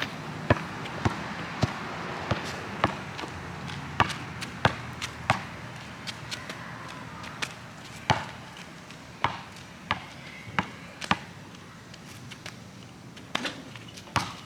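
A basketball bouncing, a quick run of bounces about two a second for the first few seconds, then only a few scattered bounces.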